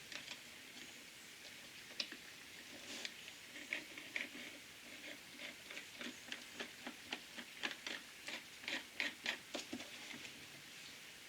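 Faint, irregular light clicks and taps of small plastic and metal parts being handled inside an opened jigsaw, a few at first, then coming quicker, about three a second, for a few seconds past the middle.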